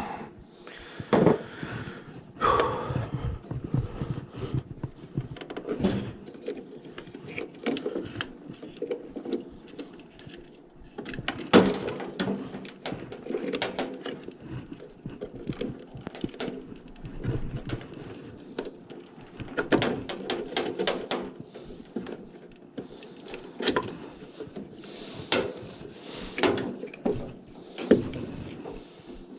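Irregular knocks, taps and clatter of plastic and metal parts being handled while a furnace's condensate drain hoses and fittings are worked on.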